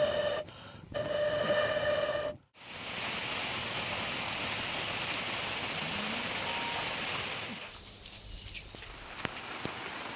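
Rain falling steadily, an even hiss that eases after about five seconds to a lighter patter with scattered drips. Before it, at the start, come two short held musical tones that stop abruptly.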